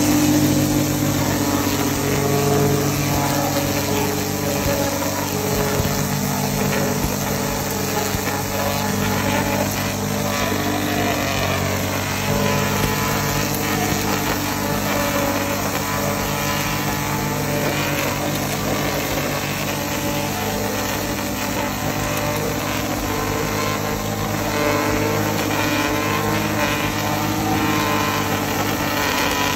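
String trimmer running steadily at speed as its spinning line edges grass along a concrete sidewalk.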